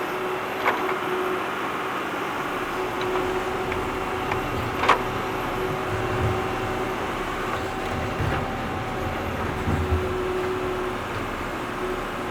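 Tractor digging: the engine runs steadily with a constant hum, and a few sharp knocks come through, the loudest about five seconds in. From about four seconds in a low, uneven rumble joins it.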